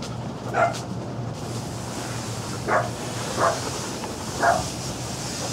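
A dog barking: four short single barks spread over a few seconds, over a steady low hum and hiss.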